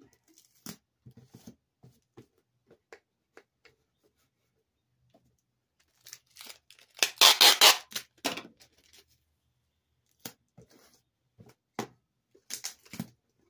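Packing tape pulled off the roll and torn, loudest for about a second some seven seconds in, with a shorter pull near the end. Light taps and rustles of hands on a cardboard box come in between.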